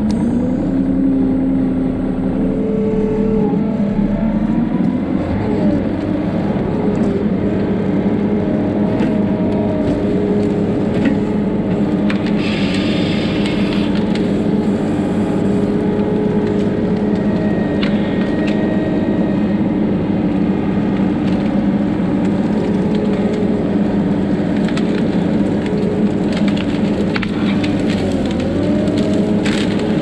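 ASV RT-50 compact track loader's diesel engine running steadily, heard close up, with scattered cracks and snaps of branches from the brush load it is carrying.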